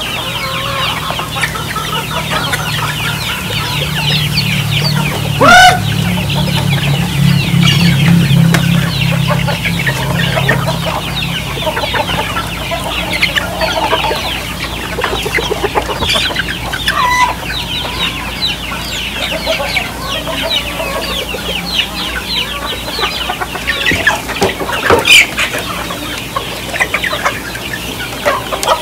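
A flock of free-range native chickens clucking continuously as they crowd in to feed. One bird gives a loud, rising squawk about five seconds in, and there is another sharp loud call near the end.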